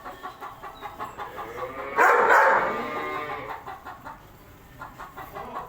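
Chickens clucking, with one loud drawn-out call about two seconds in that lasts about a second.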